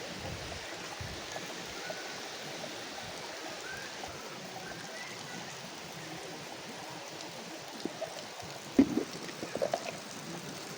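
Steady rush of flowing river water, with a few short knocks near the end.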